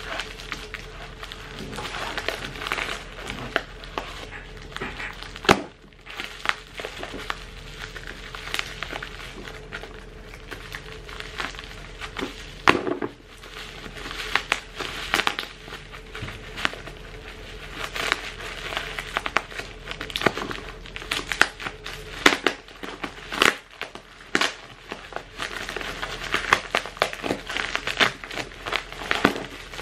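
Plastic bubble wrap and packing tape crinkling as a parcel is unwrapped by hand, with many irregular sharp crackles and snaps.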